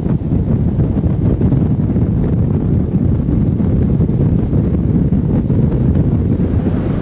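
Wind buffeting the microphone at the side window of a moving Toyota Land Cruiser FZJ80 on a dirt road: a loud, steady low rumble.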